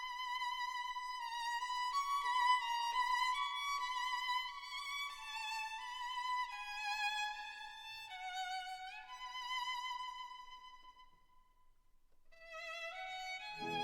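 Background music: a solo violin playing a slow melody with vibrato and a few sliding notes. It fades out about eleven seconds in, then a new phrase starts near the end.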